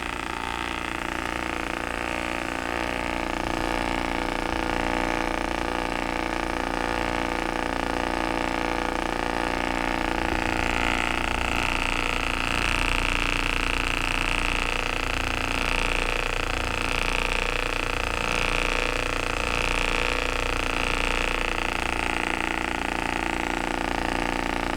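Electric heated massage device running with a steady motor hum while it massages the shoulder and shoulder-blade muscles; a higher whine in the hum grows stronger about ten seconds in.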